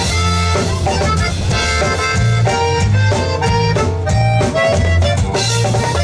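Live conjunto band playing an instrumental passage between sung lines: accordion carrying the melody over a steady bass line and drums.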